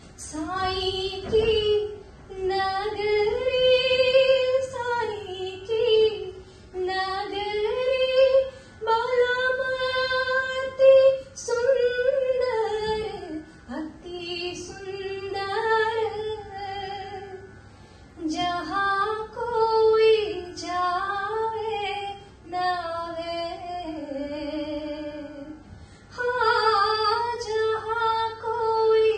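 A woman singing a Hindi devotional bhajan solo, with no instruments: long held, wavering notes in phrases broken by short pauses for breath.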